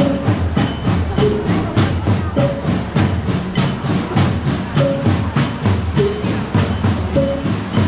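Music with a fast, steady drum beat of about three beats a second and short repeated high notes every second or so.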